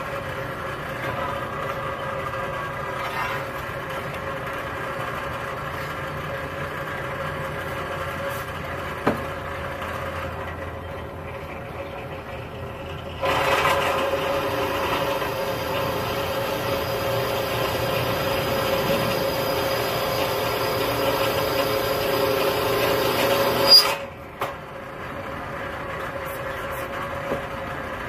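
A power cutting tool runs steadily with a constant whine while cutting a steel angle-iron bracket. About halfway through, the cut bites harder and the sound grows louder with a scraping, hissing edge for about ten seconds, then eases back to the plain running whine.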